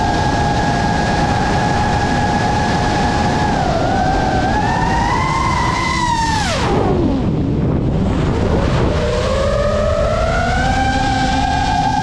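GEPRC Mark5 FPV quadcopter's brushless motors whining, with a steady rushing noise underneath. The pitch holds, rises a little, then falls steeply about six and a half seconds in as the throttle is cut, and climbs back up from about nine seconds in as the throttle returns.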